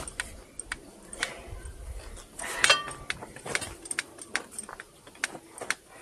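Metal tools and parts clinking and tapping in irregular short knocks, with one louder clank a little under halfway through that rings briefly.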